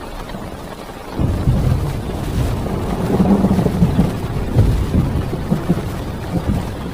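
Thunder rumbling over heavy rain on a parked car, heard from inside the car; the deep rumble swells about a second in and rolls on with uneven peaks.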